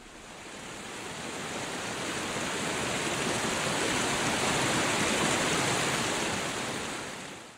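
Fast river water rushing over rocks, a steady wash of noise that swells up over the first few seconds and cuts off suddenly at the end.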